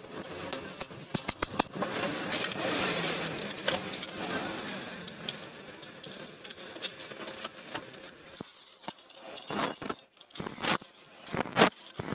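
Metal hand tools and sockets jangling and clinking, then a run of separate sharp clicks over the last few seconds as a socket ratchet works a bolt on the engine's clutch cover.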